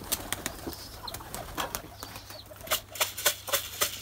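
Pigeons' wings flapping as the birds fly down and land: a run of sharp wing claps, strongest and quickest near the end.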